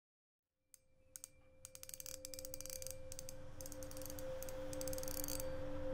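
Opening soundtrack fading in from silence: two steady held tones under a dense crackle of rapid clicks, growing louder.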